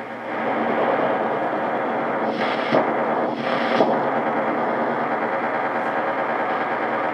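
JRC NRD-545 shortwave receiver's speaker giving out a steady, noise-like signal on 13,230 kHz in AM mode, which sounds like a jamming signal. The signal gets louder about half a second in, with two faint ticks in the middle.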